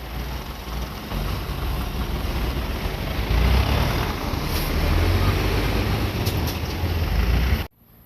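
Tobu Tojo Line train passing over a level crossing: a loud, steady rumble of wheels on rail with a heavy low undertone, growing louder about three and a half seconds in, with a few sharp clicks. It cuts off abruptly near the end.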